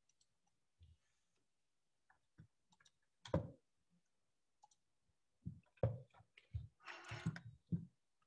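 Scattered clicks and knocks of someone handling things at a desk: a few faint clicks, a louder knock about three seconds in, then a quick run of knocks and a brief rustle near the end.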